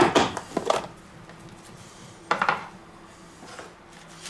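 Plastic food storage container knocked and clattered on a wooden cutting board as it is set down and its clip-on lid is taken off: a few sharp knocks at the start, one more just before a second in and another a little over two seconds in.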